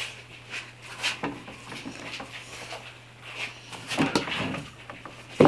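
Bar clamps being tightened across a glued-up pine board panel: scattered clicks and knocks of the clamp handles and jaws against the wood, with a cluster about four seconds in and a sharp louder knock at the end.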